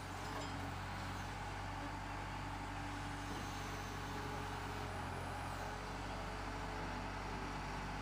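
Skid steer loader's engine running steadily as the machine works, lifting and carrying a slab of torn-up asphalt.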